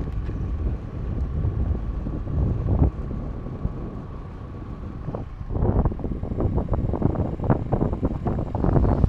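Wind buffeting the microphone of a moving motor scooter, over a low rumble from the ride. The buffeting gets heavier a little past halfway.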